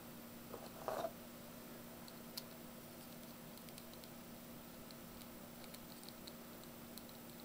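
Faint handling noise: a brief rustle about a second in, then scattered small clicks over a steady low hum.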